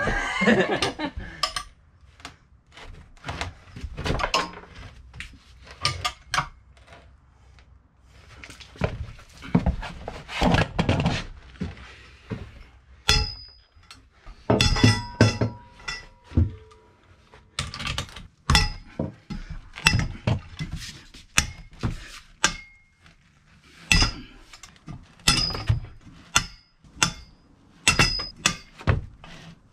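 Hand tools and a long steel breaker-bar pipe clinking and knocking against a seized Kawasaki 1500 four-stroke jet ski engine as its bolts are worked loose. The metal clanks come irregularly, denser from about halfway through, the sharper ones ringing briefly.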